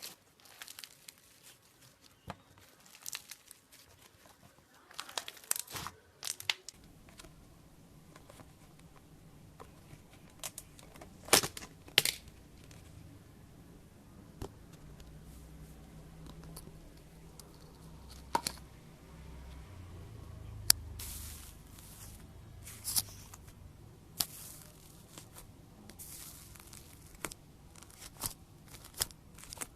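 Slime being played with by hand: sticky crackling and tearing sounds with scattered sharp pops, a few of them much louder than the rest.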